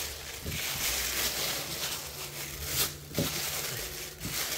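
Plastic bag and tissue paper wrapping crinkling and rustling as hands pull it open to unwrap a folded jersey, with a few sharper crackles in the second half.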